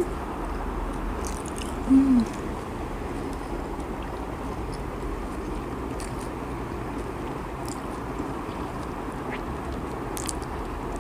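A woman chewing a banana spring roll, with faint wet mouth clicks over a steady background hiss. About two seconds in, she gives a short closed-mouth 'mmm' hum that falls in pitch.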